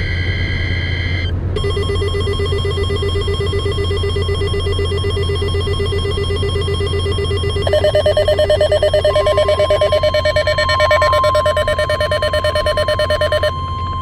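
NOAA Weather Radio alert: a short two-tone SAME data burst ends about a second in, then rapidly pulsing electronic alarm beeps begin. A second, higher pulsing beep joins partway through, and the steady 1050 Hz weather radio alert tone starts about nine seconds in. The pulsing beeps cut off suddenly near the end, leaving the steady tone.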